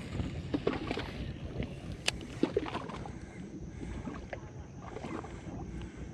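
Topwater frog lure being popped back on a baitcasting reel: scattered sharp clicks and small pops over a low steady rumble, the sharpest click about two seconds in.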